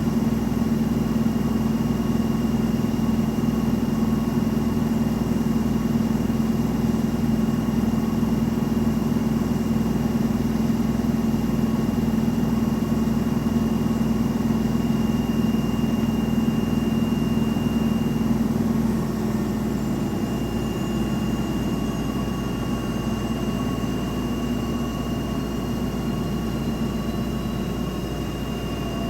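Front-loading washing machine on a high-speed spin, its drum and motor giving a loud, steady hum. About two-thirds of the way through the hum eases and a faint high whine starts to fall in pitch as the drum begins to slow.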